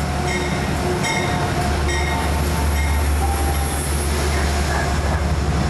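Metro-North GE P32AC-DM diesel locomotive pulling into the station and passing close, its engine giving a steady low drone. Its bell rings about once every 0.8 seconds and stops about three seconds in.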